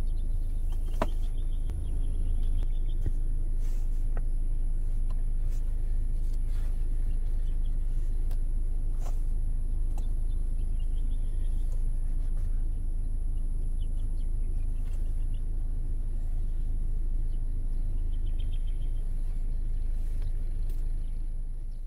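A steady low rumble with a faint high whine, a few faint chirp trills, and several light clicks about one, four and nine seconds in.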